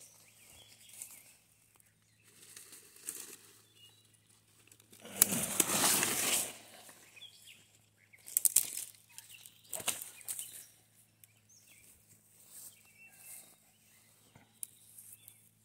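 Rustling and crackling of brush and leaves as someone searches through the vegetation for a stick. There is a louder stretch of rustling about five seconds in and a few sharp cracks a few seconds later.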